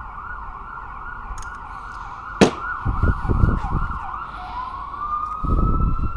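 Emergency vehicle siren in a fast yelp, warbling about three to four times a second, which switches about four and a half seconds in to a slow rising wail. A sharp click comes about two and a half seconds in, and there are low thumps near the middle and near the end.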